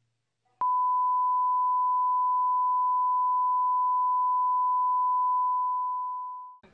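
The steady beep of a TV colour-bar test tone: one pure, unchanging high note that comes in with a click about half a second in, holds loud and level, and fades out near the end.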